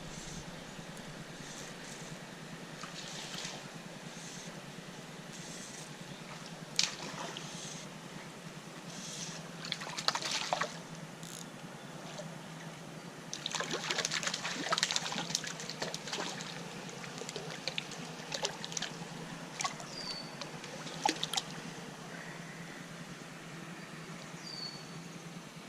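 Creek water trickling and running steadily, with a steady low hum underneath. Scattered sharp clicks come through, and there are louder stretches of splashing and sloshing about ten seconds in and again a few seconds later. A couple of short high chirps sound near the end.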